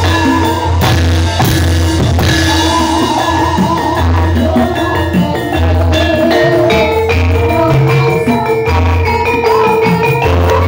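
Music with a steady pulsing bass line and a melody over it.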